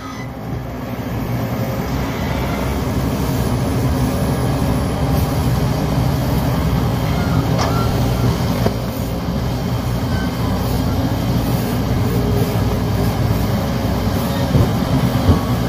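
Diesel engines of heavy earthmoving machinery running, a steady low rumble that builds over the first couple of seconds and then holds.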